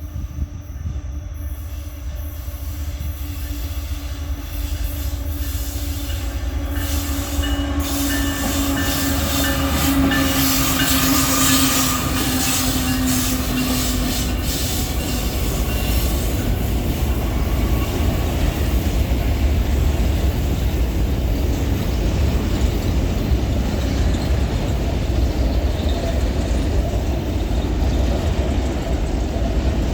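Freight train with a GE ES43BBi diesel-electric locomotive and mostly empty grain hopper wagons rolling through a tight curve: a heavy, loud rumble of engine and wheels, with wheel and flange noise in the curve. A steady tone sounds for several seconds before fading about halfway through.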